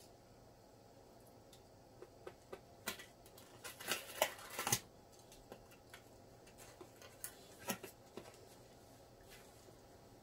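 Box cutter slicing through packing tape on a small cardboard box, with a burst of scraping and cutting about three and a half to five seconds in. Scattered clicks and taps of the box and blade being handled.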